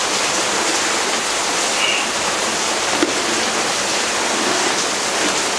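A steady, loud rushing noise with no pitch to it, like a constant hiss of water.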